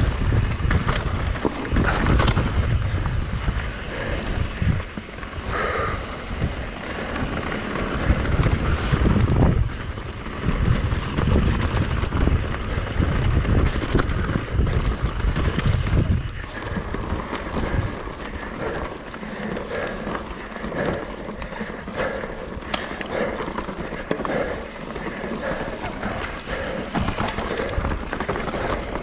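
Mountain bike riding down a rocky singletrack: tyres rumbling and clattering over stones and roots, with wind buffeting the microphone. The heavy low rumble eases after about sixteen seconds, leaving lighter, scattered clatter.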